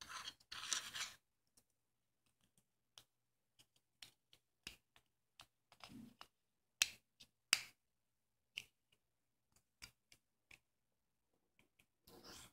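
Faint handling of a small plastic drone camera module: a rustle in the first second, then scattered small clicks, two sharper ones a little past the middle as the case halves are pressed together, and a brief scrape near the end as a microSD card is picked up off the table.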